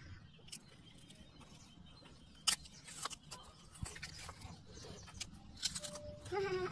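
Crisp round snack chips crunching as a child bites and chews them: scattered short crackles and snaps, the sharpest about two and a half seconds in and again near the end.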